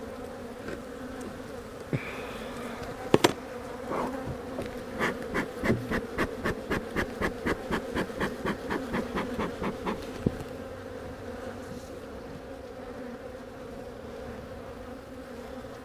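Honey bees buzzing steadily around an open hive, a low even hum. A sharp knock comes about three seconds in, and in the middle a run of short regular clicks, about three a second, lasts around five seconds.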